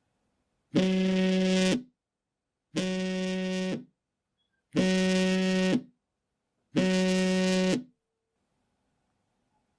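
Mobile phone vibrating in four buzzes of about a second each, a second apart: a coarse, rattling low buzz, the vibration motor against a hard surface.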